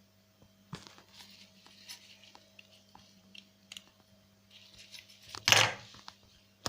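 Small ticks and rustles of hands handling the necklace and its parts, with one louder, short rustle about five and a half seconds in, over a faint steady low hum.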